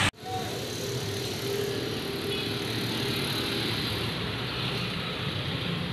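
Street traffic: a steady rumble of vehicle engines and passing traffic, with an engine's faint held tone early on.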